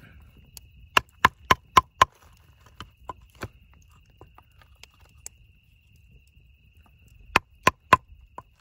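Wooden baton knocking on the spine of a Wood Steel Knives Snake Eater knife, batoning the blade down through a rattlesnake's neck into a wooden stump. Five quick knocks about a second in, a few lighter taps, then three more quick knocks near the end.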